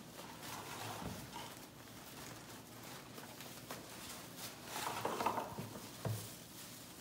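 Wired ribbon and pine garland rustling as they are handled and tucked together, in short spells, loudest about five seconds in, with a soft knock just after.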